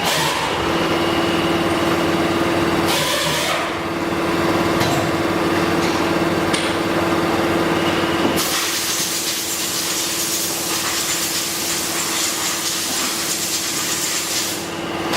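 Water-cooled CNC spindle motor running at a steady speed, giving one steady whine. A brief rush of noise comes about three seconds in, and a broad hiss joins the whine from about halfway through.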